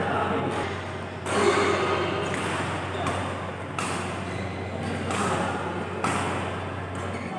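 Badminton rally: racket strings smacking the shuttlecock back and forth about once every second and a half, each hit sharp and echoing in the hall, over a steady low hum and background noise.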